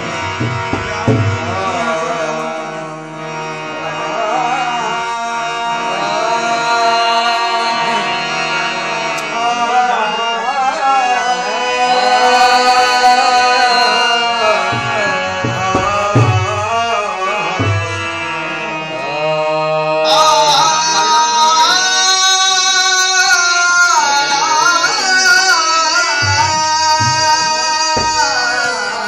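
Qawwali sung live: a harmonium holds sustained notes under a male lead singer's long, gliding vocal line, with occasional drum strokes.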